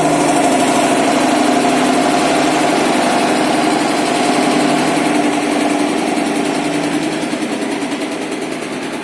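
Carpet-washing centrifuge spinning with a rapid, rhythmic knocking, getting quieter over the last few seconds. The uploader attributes this knock to a wrongly rolled carpet whose loose end strikes the inner drum wall, made louder by bearings whose oil was never changed.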